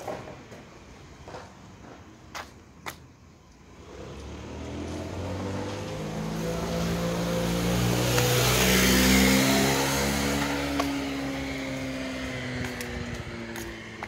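A motor vehicle approaches and passes. Its engine or motor hum and rushing noise build from about four seconds in, peak just past halfway, then fade slowly, sinking a little in pitch as it goes away. A few sharp clicks come before it.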